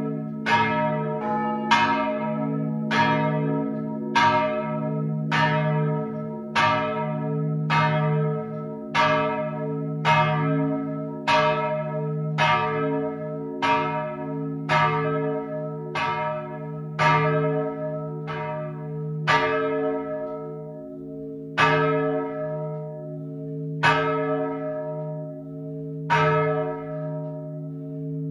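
Swinging church bells struck by their clappers, close up inside the bell tower. They come from a ring of three bronze bells tuned D♯4, G♯4 and F5, the oldest cast in 1489. Each stroke rings out over a lingering hum, at about two strokes a second at first, spreading to about one every two seconds toward the end.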